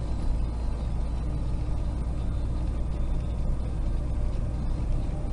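Semi truck cruising at highway speed, heard from inside the cab: a steady low hum of engine and road noise.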